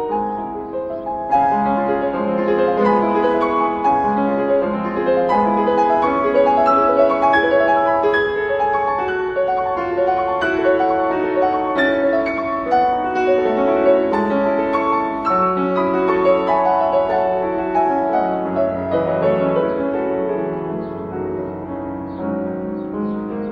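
Piano music, many notes a second, playing steadily.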